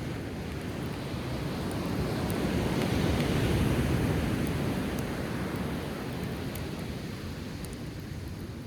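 Sea waves surging onto the shore, one wave swelling to its loudest about halfway through and then drawing back, with a few faint crackles from a driftwood campfire.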